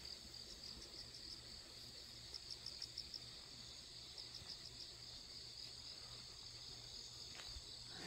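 Faint, steady chorus of crickets and other grass insects chirping, with a run of quick pulsed chirps about two to three seconds in.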